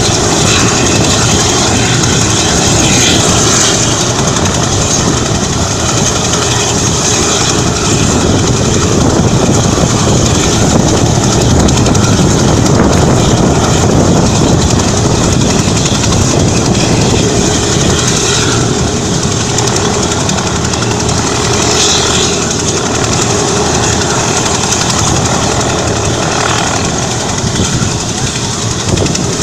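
Large military transport helicopter running on the ground with its rotors turning: a loud, steady rotor and turbine noise with a thin whine.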